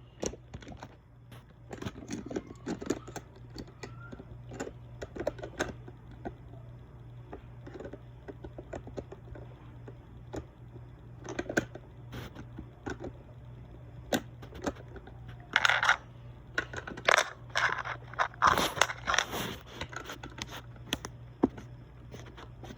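Plastic LEGO pieces clicking and rattling as a broken part of the build is pressed back together, scattered small clicks and scrapes that grow busier and louder in the last several seconds.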